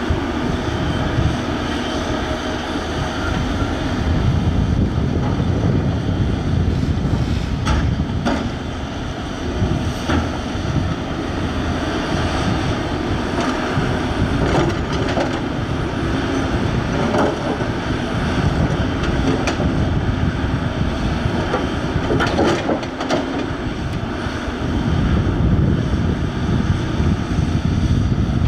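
Volvo EC210B tracked excavator at work: its diesel engine runs steadily under load, with several sharp knocks scattered through the middle.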